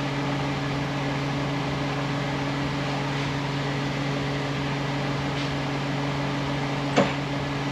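Steady mechanical hum with a low drone, and one short click about seven seconds in.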